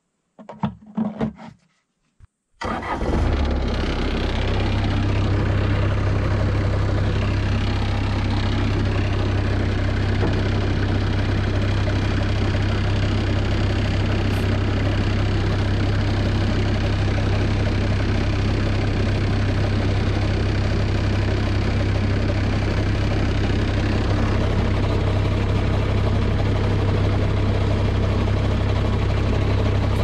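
A Bobcat 751 skid steer's diesel engine starts up suddenly about three seconds in and then idles steadily with a deep, even hum. Before it, a few brief knocks and rattles.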